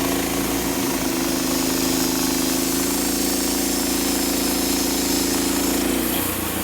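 Portable band sawmill running, its small gasoline engine driving the band blade with a steady drone; the sound changes abruptly about six seconds in.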